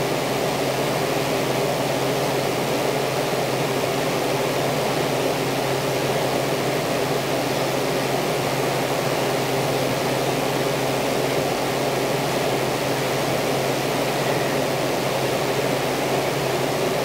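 Steady, even rushing hiss of noise at a constant level, with no voices or music.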